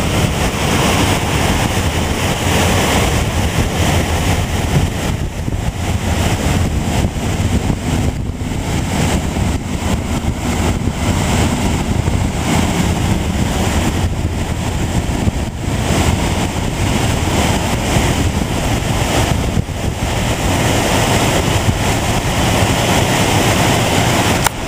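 Loud, steady rush of a waterfall pouring over a wide rock ledge into a fast river, with wind rumbling on the microphone.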